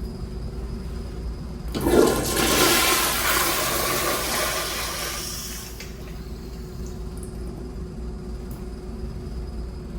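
American Standard toilet flushing: a sudden loud rush of water about two seconds in that fades away over the next four seconds, over a steady background hum.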